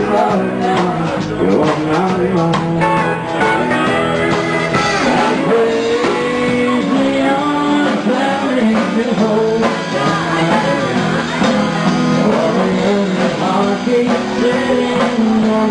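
Rock and roll music with a singer.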